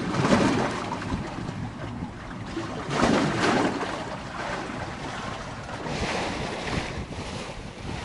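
Choppy sea waves washing against a concrete seawall, surging three times, near the start, about three seconds in and about six seconds in, with wind buffeting the microphone.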